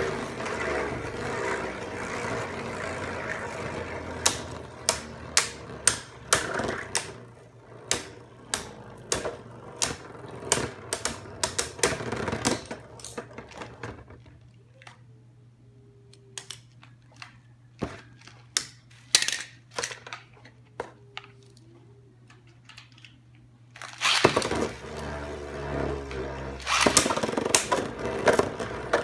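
Background music with many sharp clicks and taps from packaging being handled. About halfway through the music stops for about ten seconds, leaving scattered clicks over a steady low hum, and then it comes back.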